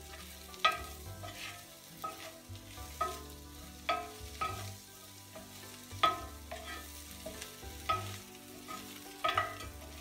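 A wooden spoon stirs frying fish and bell peppers in a skillet, knocking against the pan about once a second with short ringing clicks over a faint sizzle.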